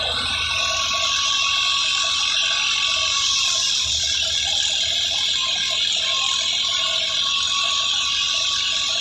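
Tractor-driven wheat thresher running steadily while straw is fed in: a continuous high rushing, rattling noise from the threshing drum and blower, with a steady whine and a low rumble from the Al Ghazi tractor powering it through its PTO shaft.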